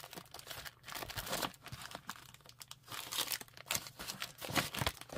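Craft-supply packaging and bags crinkling as they are handled and packed away, in irregular rustles and crackles.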